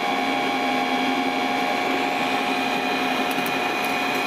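Electric motor-generator set, an electric motor driving a generator, running at constant speed with a steady hum and whine made of several unchanging tones.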